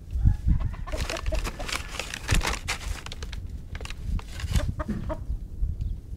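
Chickens clucking, busiest from about a second in until about five seconds, over a steady low rumble.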